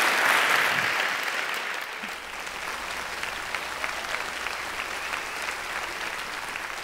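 Audience applauding, loudest in the first second, then settling into steady clapping.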